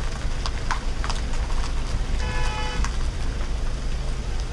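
Low, steady rumble of vehicle engines in slow traffic, with a single horn toot lasting about half a second a little after two seconds in.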